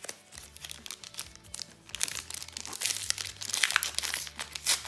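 Foil booster pack of Panini Adrenalyn XL trading cards being torn open and crinkled, the crackling sparse at first and getting dense and louder from about two seconds in.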